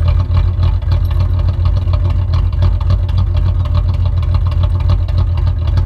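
Volkswagen Jetta 2.8 VR6 six-cylinder engine idling, heard at the exhaust, with a steady low hum broken by uneven pulses. The engine runs with little power and has a check-engine light. The owner describes the noise as a rattle and guesses, without certainty, at the timing chain tensioner.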